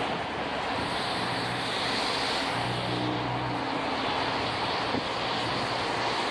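An ICE electric train running past over the rails, a steady rushing rumble with a low motor hum that swells for a moment midway through.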